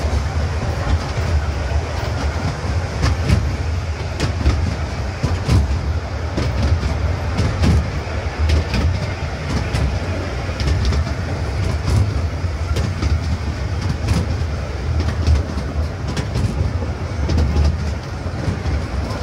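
Small tourist train running along its track, heard aboard: a steady low rumble with irregular clicks and clacks from the wheels on the rails.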